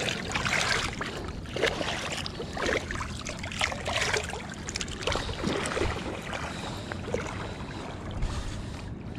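River water splashing and sloshing in irregular bursts as a catfish is released by hand in the shallows and a wading person steps about in shin-deep water.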